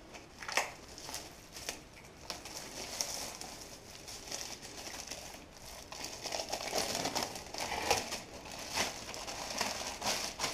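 Cellophane wrapping crinkling in irregular crackles as it is handled and pulled off a reverse-osmosis filter cartridge, getting busier in the second half.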